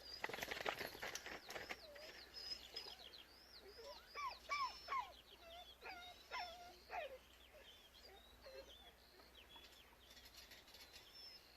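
Faint birdsong: a run of short, repeated chirps, with a few lower, louder calls in the middle.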